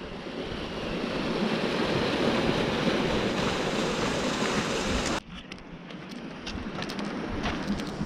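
A steady rushing noise, like rapids or a strong wind, swells over the first two seconds, holds, and cuts off abruptly about five seconds in. A quieter bed with faint light ticks follows.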